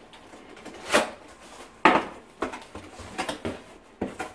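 Cardboard box being opened by hand: a run of short rustles and scrapes as the flaps are pulled open, the loudest a sudden one about two seconds in.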